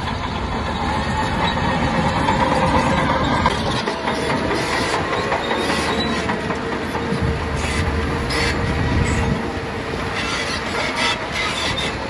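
Crawler bulldozer at work: the diesel engine runs steadily under load while the steel tracks clank and squeal, with scattered sharp knocks.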